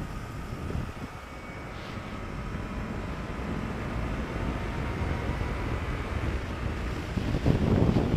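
Wind rushing over the microphone of a Yamaha R3 sport bike at road speed, with the 321 cc parallel-twin's engine note faintly underneath and slowly climbing in pitch. A louder gust of wind buffeting hits the microphone near the end.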